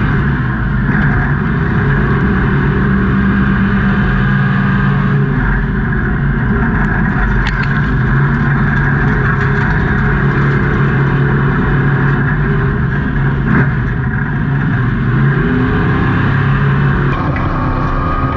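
Off-road race vehicle engine running hard at high revs, its pitch stepping up and down as it accelerates and eases off.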